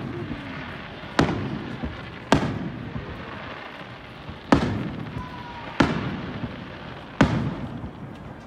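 Aerial fireworks shells bursting overhead: five sharp booms spaced one to two seconds apart, each trailing off in a rolling echo.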